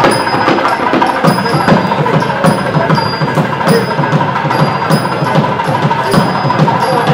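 Temple procession percussion: drums beating fast, with a ringing metal strike at a steady beat about every two-thirds of a second.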